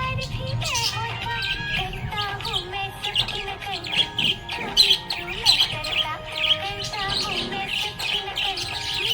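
Budgerigars chirping and warbling: a dense, continuous chatter of short high chirps mixed with wavering, gliding notes.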